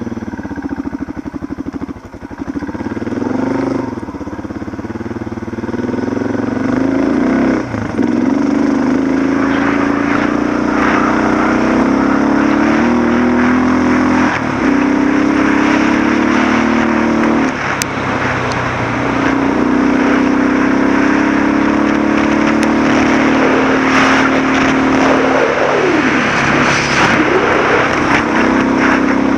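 Suzuki DR650's single-cylinder four-stroke engine running under way on a gravel road, its note dipping briefly and coming back several times as the rider rolls off and on the throttle, over a steady rushing noise of wind and tyres.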